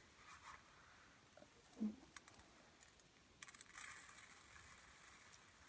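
Dry rice pattering as it is poured to imitate rain for a sound effect. The patter starts suddenly about three and a half seconds in and thins out within a second and a half, as if the rice is running out. Earlier there is a short low murmur of a voice, near the middle.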